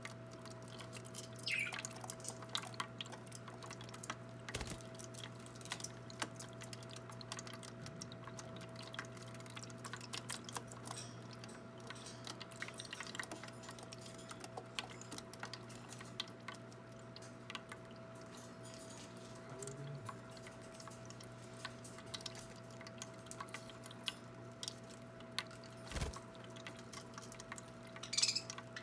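Small electric bird-bath water fountain running with a steady hum and quiet trickling. Over it come scattered light clicks and splashes as budgies bathe in it, and a couple of brief high budgie chirps about a second and a half in and near the end.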